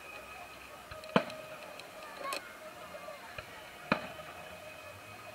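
Aerial firework shells bursting at a display: two sharp bangs, about a second in and about four seconds in, and a smaller pop between them, heard from a distance.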